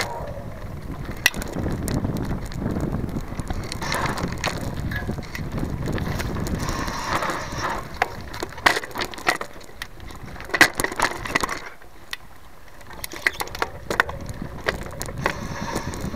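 Mountain bike rolling downhill on a dirt singletrack, heard from a camera mounted on its frame: steady tyre noise on the dirt with frequent sharp clicks and knocks as the bike goes over bumps. The noise drops briefly about twelve seconds in, then the clicks return.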